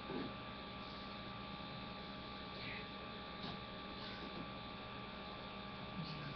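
Low, steady electrical mains hum, with a few faint brief sounds in the background.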